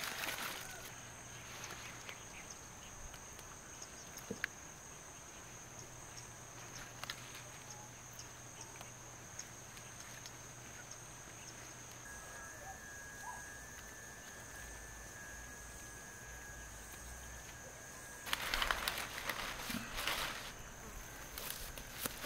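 A steady, high-pitched insect trill, faint throughout. About 18 seconds in come a couple of seconds of louder leafy rustling as freshly picked choy sum leaves are pressed into a wicker basket.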